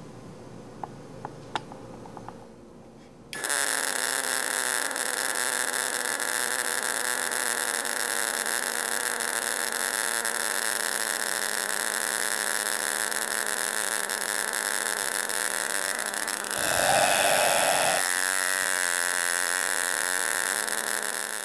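High-voltage electric arc from a 9-volt flyback transformer driver, jumping continuously between two screw electrodes. After a few faint clicks it starts suddenly about three seconds in as a loud, steady buzzing hiss with a high whine, and grows louder for a moment near the end.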